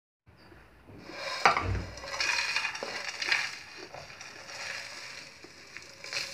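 A spatula stirring and scraping syrup-coated fried rice, peanuts and raisins in a nonstick pan, with knocks against the pan, loudest in the first few seconds; then the mixture is scraped and tipped out of the pan onto a plate.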